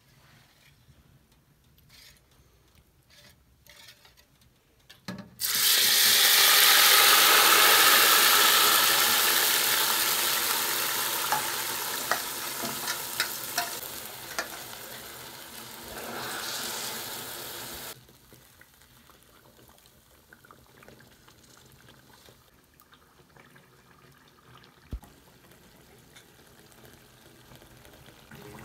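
Whisked batter poured into a pot of hot oil and syrup sets off a loud, sudden sizzling hiss about five seconds in. The hiss slowly fades and cuts off suddenly some thirteen seconds later. Only faint clicks of a ladle in the pot follow.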